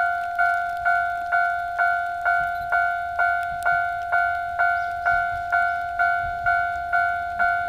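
Japanese railway level-crossing alarm bell ringing, a two-tone electronic strike repeating about twice a second, each strike fading before the next: the crossing is closed for a passing train.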